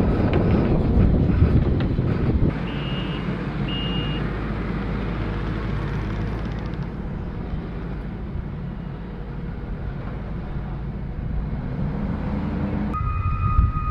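Heavy vehicle engines running with a steady low rumble, with two short high beeps about three seconds in and a vehicle's reversing beeper starting near the end.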